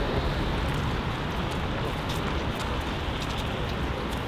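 Steady low rumble and hiss of a coach's engine idling, with a few faint light clicks.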